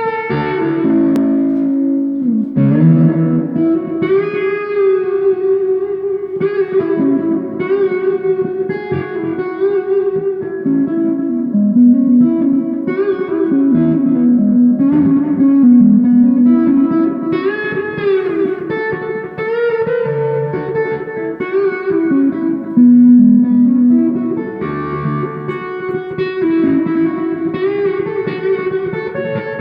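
Gibson electric guitar played through a Marshall amplifier: an improvised lead solo of single-note melodic lines that bend and slide in pitch, with no backing.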